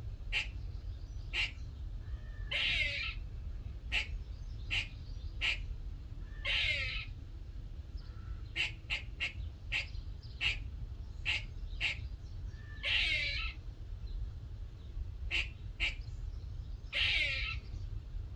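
Grey squirrel calling: a run of short, sharp chucks about one or two a second, broken four times by a longer, rasping call lasting about half a second.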